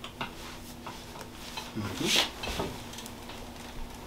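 Rustling and shuffling of clothing and the treatment table as a patient's leg is moved and stretched. There are scattered soft clicks, a louder short rustle about two seconds in, and a low steady hum underneath.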